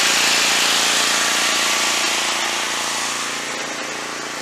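Portable generator engine running steadily under load, powering the air conditioner and well pump; it grows fainter after about two seconds.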